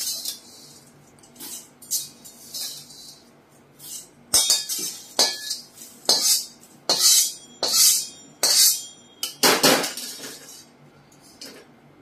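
Crisp, freshly roasted thin poha (flattened rice) being tipped from a slotted spoon into a steel tin, with a spatula. It makes a series of about a dozen short, dry rustling bursts, and the metal clinks and scrapes on the tin's rim.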